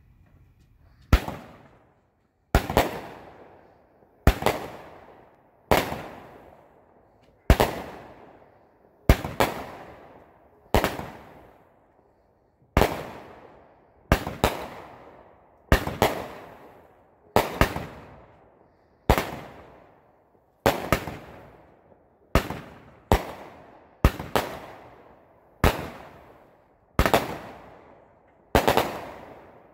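Enigma Fireworks 'Rincewind Craziness' 200 g, 19-shot firework cake firing its shots one after another, a sharp bang roughly every one and a half seconds, each fading over about a second.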